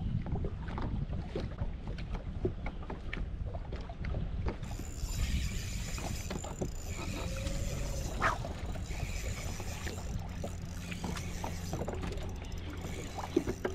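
Wind buffeting the microphone and water lapping against a bass boat's hull, with scattered small clicks and rattles. A brighter hiss joins about four and a half seconds in.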